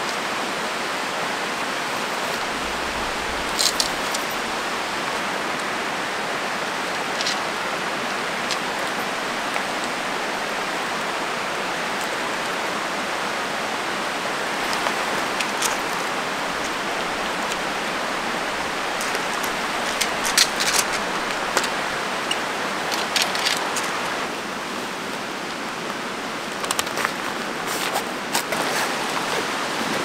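Steady rushing of a mountain valley stream flowing over rocks, with scattered light clicks and clinks of tent poles and camping gear being handled. The rushing drops a little about 24 seconds in, and a cluster of clinks follows near the end.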